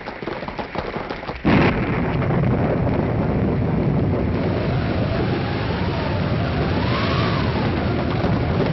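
Radio-drama storm sound effect: a sudden thunder crash about a second and a half in, then steady rain-and-storm noise with a wind whistle rising and falling. Before the crash, a rapid clatter fits the posse's horses setting off.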